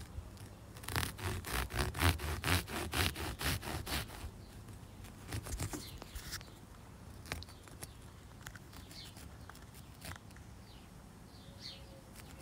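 A knife sawing back and forth through upholstery foam, in quick even strokes about four a second for the first few seconds, then only faint, scattered scraping.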